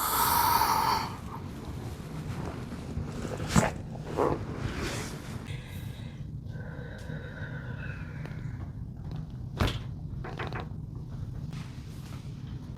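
Sharp cracks from joints popping under a chiropractic adjustment: a loud one about three and a half seconds in with a smaller one just after, and another near ten seconds, over a steady low hum. It opens with a rushing hiss lasting about a second, and a thin whine sounds for about two seconds in the middle.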